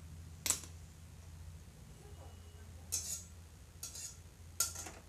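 A steel spatula clinks against an empty steel kadai on the gas stove, four short, sharp knocks spread across a few seconds.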